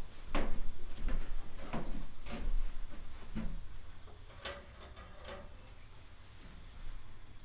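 A series of irregular knocks and clunks, about seven in the first five seconds, with the last two sharper and brighter.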